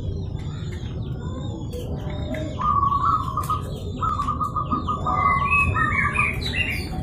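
Zebra dove (perkutut) calling: runs of rapid stuttering coo notes, ending in a phrase that steps upward in pitch, over repeated short high chirps from other small birds and a low steady rumble.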